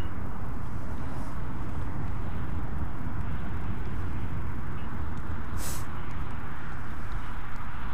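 Wind buffeting the camera microphone: a steady, fluttering low rumble with a hiss over it. A short, sharp hiss comes about five and a half seconds in.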